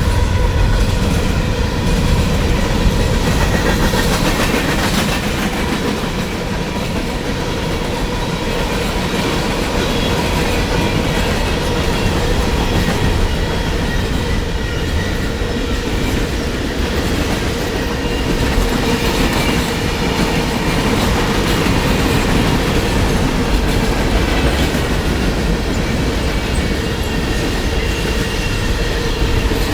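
A train passing at speed on the mainline: a steady loud rumble with wheels clattering over the rail joints and a thin steady whine running over it.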